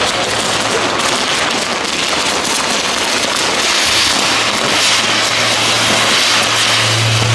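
Castillo fireworks tower burning: a loud, continuous hiss and crackle of sparking fountains. A steady low hum joins about four seconds in.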